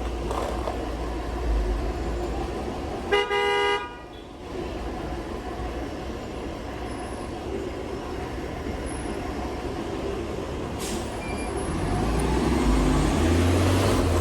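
Road and wind noise while riding in traffic, with a single vehicle horn honk about three seconds in, lasting under a second. A louder low traffic rumble builds near the end.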